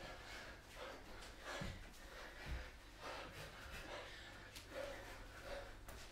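Repeated sharp exhalations of people breathing hard through a boxing-style cardio interval of hooks, ducks and knee drives, with a couple of dull thuds of bare feet on the floor about one and a half and two and a half seconds in.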